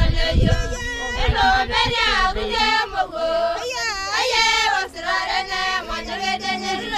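A group of Maasai women singing together in high voices, several voices overlapping.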